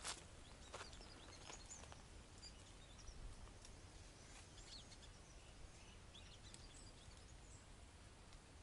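Faint outdoor birdsong: scattered short chirps and whistles from several birds over a low background hiss, with a couple of light clicks in the first second.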